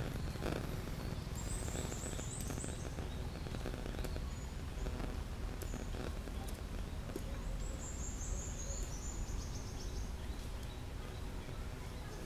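Outdoor ambience with a steady low rumble, and a small bird singing twice: a quick run of very high, slightly falling notes about a second in and again around eight seconds in.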